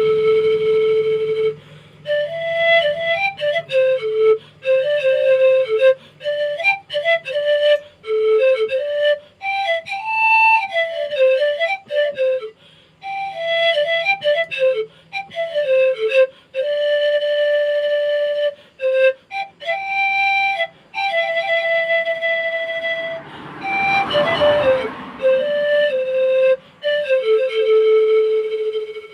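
Solo wot, the Isan circular bamboo panpipe, playing a lively single-line melody in short phrases with brief breaks between them. Near the end a short breathy rush of air sounds.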